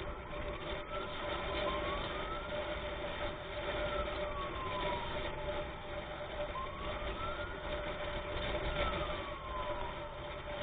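Ambulance siren on a slow wail, gliding up and down in pitch through two full rise-and-fall cycles, over steady road noise and a constant droning tone.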